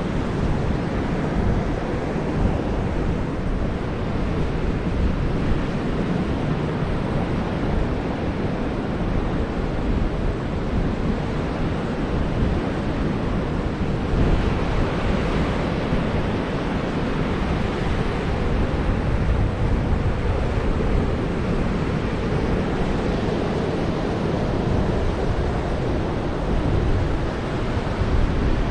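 Surf washing on the beach, with wind buffeting the microphone. The wash swells louder for a few seconds about halfway through.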